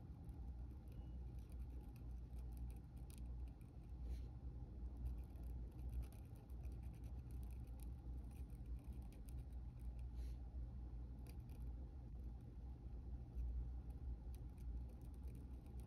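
Faint scratching of a fountain pen nib drawing ink lines on textured paper, with a few light ticks, over a steady low hum.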